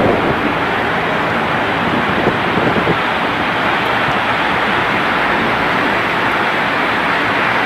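Strong blizzard wind blowing steadily, an even rushing noise.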